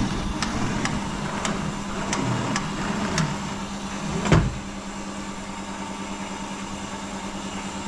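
Electric water pump with a pressure tank running with a steady hum while it draws water up from the ground. Scattered clicks in the first few seconds and a single loud thump about four seconds in.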